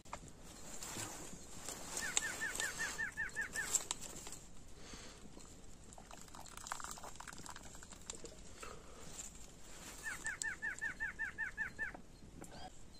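A bird calling in two runs, each of about ten quick, falling notes repeated for about two seconds, a couple of seconds in and again near the end.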